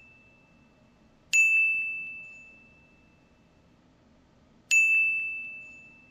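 Two bright bell-like ding sound effects about three seconds apart, each a single high tone struck sharply that rings and fades away over about a second and a half. The tail of an earlier ding is still fading at the start.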